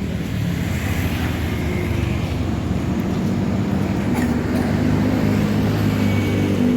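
A motor vehicle engine running close by, a low steady hum over road noise that grows louder toward the end.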